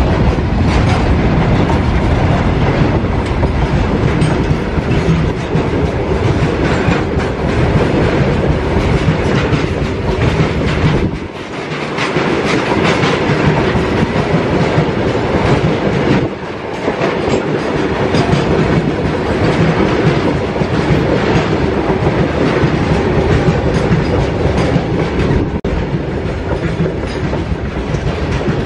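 Open-top freight wagons of a long goods train rolling past close by, their wheels clattering steadily over the rail joints. The clatter briefly softens twice, about eleven and sixteen seconds in.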